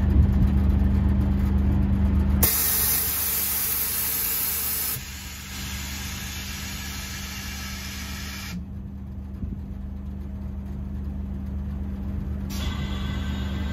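Mitsubishi Fuso Aerostar bus idling while compressed air hisses out of its front air suspension as the bus kneels. The hiss starts a couple of seconds in, is loudest for about two and a half seconds, then eases and stops about six seconds later; another air hiss starts near the end.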